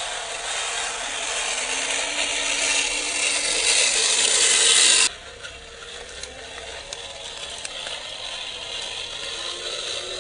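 Electric motor and geared drivetrain of a 1/12-scale RC Kübelwagen crawler whirring as it drives over rock, with a faint rising whine. It grows louder over the first five seconds, then drops abruptly to a quieter run with a few small clicks.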